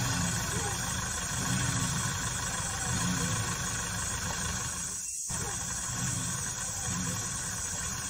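Car engine running steadily with low rumble, the sound cutting out briefly about five seconds in.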